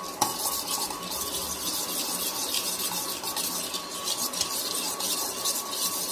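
A metal spoon whipping instant coffee, sugar and a little water in a steel bowl by hand, scraping and clicking against the bowl in quick, even strokes as the mixture froths up.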